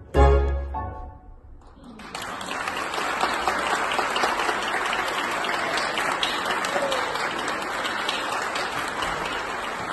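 A tango orchestra's closing chord on piano and double bass rings out and fades within the first second or so. From about two seconds in, an audience applauds steadily.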